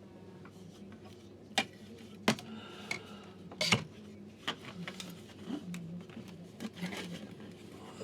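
Small hard objects being handled on a workbench: a handful of sharp, irregular clicks and knocks, the loudest about one and a half, two and a half and nearly four seconds in.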